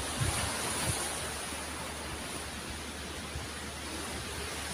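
Surf breaking on a pebble beach: a steady rushing wash of waves, with a couple of short low thumps in the first second.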